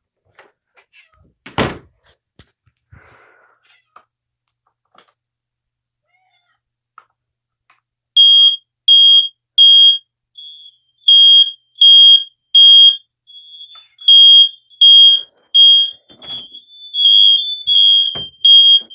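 Interconnected smoke alarms going off with a loud, shrill beep in groups of three with short pauses, the temporal-three alarm pattern, starting about eight seconds in. A second alarm sounds out of step, fainter in the gaps at first and overlapping near the end. Before that there is a single thump about a second and a half in.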